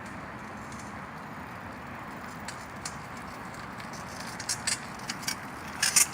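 Old bicycle giving a few short, sharp clicks and creaks from about four and a half seconds in, over a steady rush of outdoor noise. The bike squeaks for want of lubrication.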